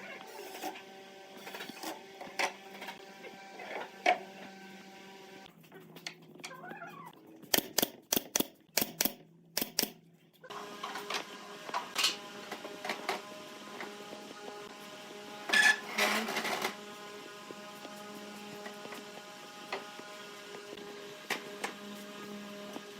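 Workshop sounds: scattered sharp clicks and knocks of wood and tools being handled over a steady machine hum, with a quick run of loud clicks near the middle.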